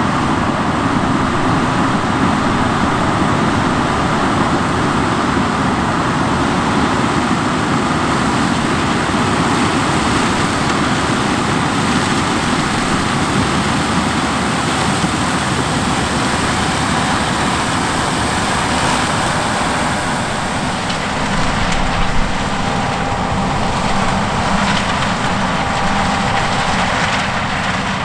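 John Deere S780 combine harvesting corn with a 16-row chopping corn head: a loud, steady running of the engine and harvesting machinery. The sound changes slightly about three-quarters of the way through.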